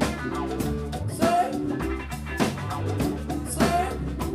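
Live funk band playing an instrumental stretch between sung lines, with drum kit and electric guitar over a steady low bass line.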